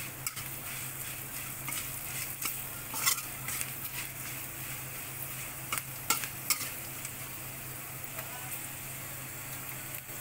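Metal spatula stirring and scraping a tempering of dal, curry leaves and green chillies frying in oil in a metal kadhai, with a steady sizzle and a few sharp clinks of the spatula against the pan.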